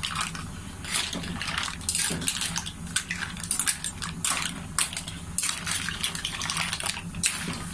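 Green mussel shells clattering against each other and the wok as a metal spatula stirs them: many irregular sharp clicks and scrapes, over a low steady hum.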